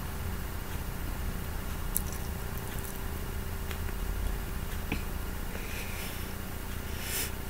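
Faint mouth sounds of someone chewing and sucking on sour candy: a few soft clicks and smacks, then a short breathy hiss near the end, over a steady low background hum.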